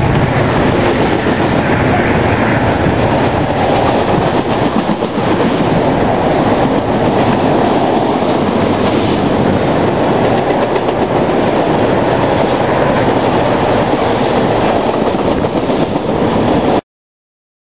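A string of railroad tank cars rolling past on steel rails: a steady wheel rumble with rapid clatter. It cuts off abruptly near the end.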